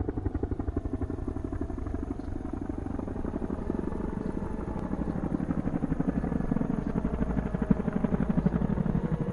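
Rapid, steady chopping like a helicopter's rotor, a fast even beat that slowly grows louder and fades out near the end.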